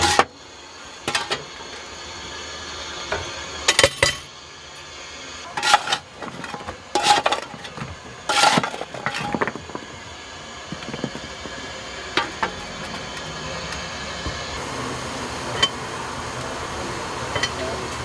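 Steel coal shovel scraping and clanking against coal and the steel footplate as a fireman fires a steam locomotive. It comes as a series of sharp metallic scrapes and clinks a second or two apart, most of them in the first half.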